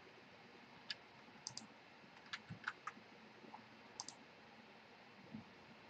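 Faint computer mouse clicks, about ten short single and paired clicks spread over a few seconds, against near silence.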